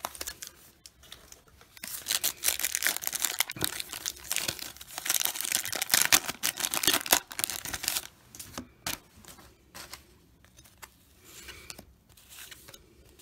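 A 1989 NBA Hoops trading-card pack wrapper being torn open by hand and crinkled, from about two seconds in until about eight seconds in. After that there is softer handling of the freshly pulled cards.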